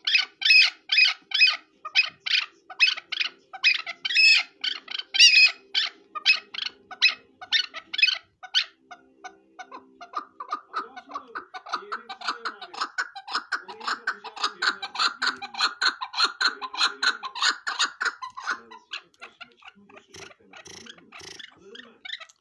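Chukar partridge calling: a loud run of repeated calls about two a second for the first eight seconds or so. After a short pause comes a quicker, softer run of chattering calls that fades out near the end.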